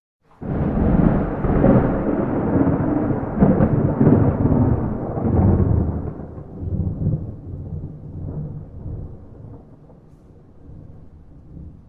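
Thunder without rain: a clap breaks out suddenly about half a second in, then rolls and rumbles low in several surges for some six seconds before dying away slowly.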